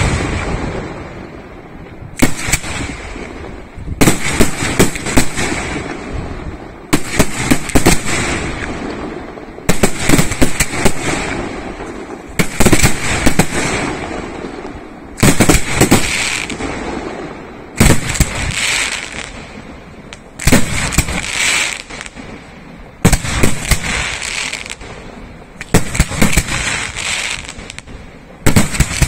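Aerial firework shells going off one after another: a cluster of loud bangs every two to three seconds, each dying away into a rumbling echo.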